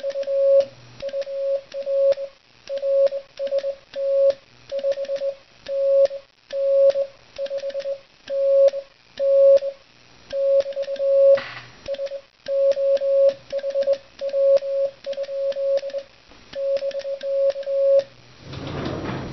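Morse code sidetone, one steady tone of about 600 Hz, keyed by hand into dits and dahs in letter and word groups on a Begali Sculpture Swing sideswiper, with faint clicks of the key's contacts. The code stops about a second before the end.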